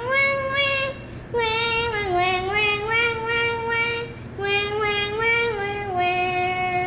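Monk parakeet singing a tune in a human-like voice: held notes stepping up and down in three phrases, with short breaks about a second in and about four seconds in, stopping suddenly at the end.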